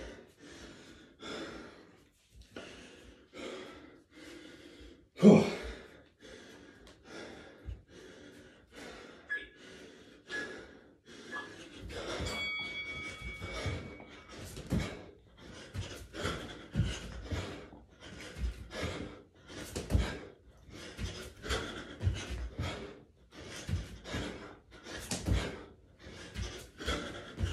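A man breathing hard and gasping through a set of burpees, the breaths coming faster, about one or two a second, in the second half, with low thuds from the exercise among them.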